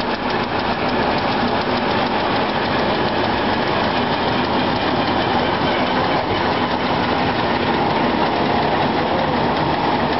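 An old sawmill's machinery running, with its large circular head saw spinning: a loud, steady mechanical noise that holds without a break.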